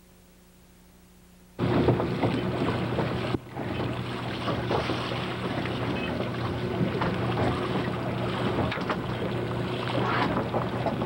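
A faint steady hum, then suddenly about one and a half seconds in, outdoor sound on the water: wind buffeting the microphone over water washing and lapping. It drops out briefly about three and a half seconds in, then runs on evenly.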